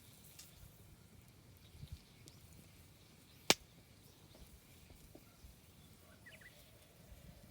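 Quiet background with a single sharp click about halfway through and two soft low thuds a little before it. A few faint short high chirps come near the end.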